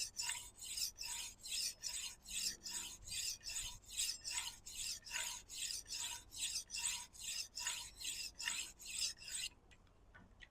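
A Serbian-style chef's knife being stroked back and forth across a 400-grit diamond sharpening stone on a guided sharpener, an even rasping scrape about three strokes a second that stops about a second before the end. The coarse grit is forming the edge, working to raise a burr.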